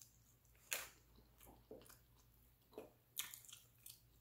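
Faint close-up chewing of a mouthful of Jamaican food, with several short, wet mouth clicks and smacks scattered through it.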